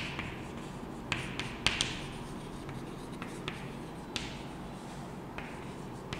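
Chalk writing on a chalkboard: scratchy strokes with sharp taps as the chalk strikes the board, several close together between one and two seconds in and another past four seconds.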